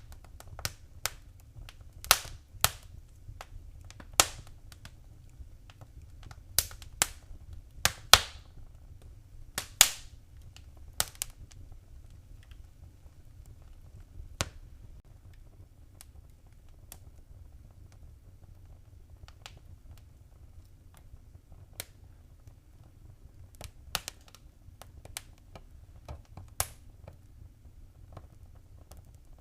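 Fireplace fire crackling: irregular sharp pops and snaps over a faint low rumble, busy in the first half and sparser later.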